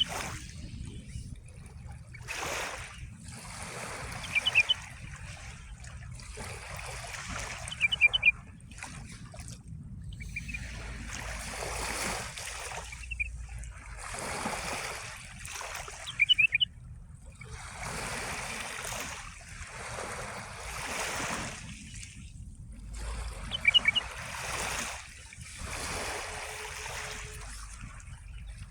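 Small waves of the Sea of Marmara washing in and splashing, one swell every two or three seconds. A small songbird cuts in four times with a quick burst of high chirps, louder than the water.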